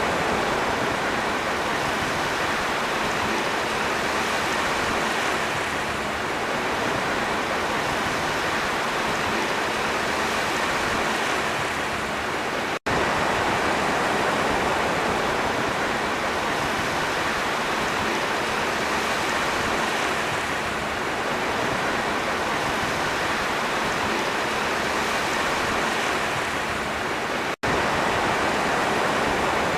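Sea waves: a steady rush of surf with only slight swells in level, cut by two split-second dropouts, one about 13 seconds in and one near the end.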